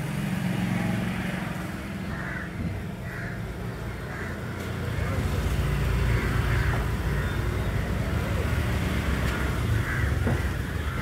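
Low rumble of a nearby motor vehicle engine, growing louder about halfway through, with faint voices in the background and a few light knocks.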